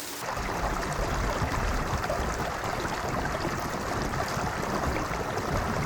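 Steady outdoor rushing noise with an uneven low rumble, the wash of wind and water near a shoreline, starting abruptly just after the start.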